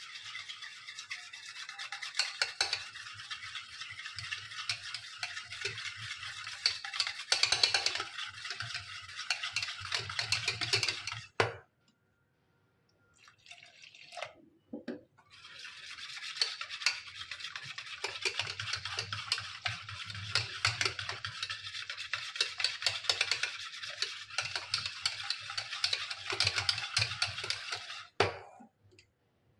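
Wire whisk beating curd and chickpea-flour batter in a stainless steel bowl, a fast, steady scratchy whisking as water is worked in to thin it. It stops for a few seconds around the middle while water is poured into the bowl, then starts again and stops just before the end.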